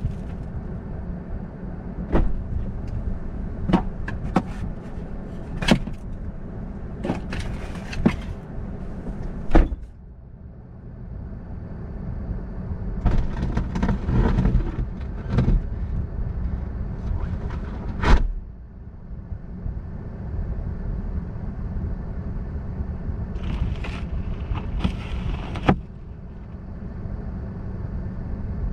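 Car driving on an icy, snow-covered road, with a steady low rumble and scattered sharp knocks and cracks.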